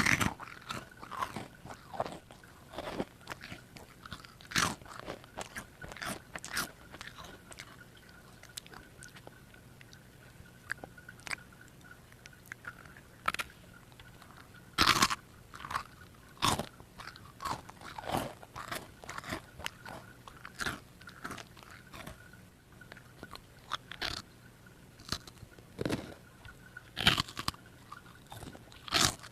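A child biting and chewing a crunchy chocolate puffed snack (Pokémon Chocobi), with sharp crisp crunches at irregular intervals and a quieter, sparser stretch in the middle.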